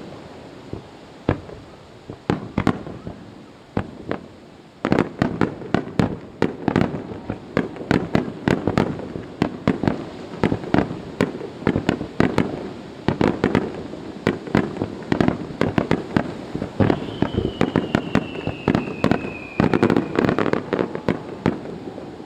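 Aerial fireworks bursting: a few scattered bangs, then about five seconds in a dense rapid barrage of explosions and crackles that runs on to the end. Near the end a long whistle slides slowly downward over the bangs.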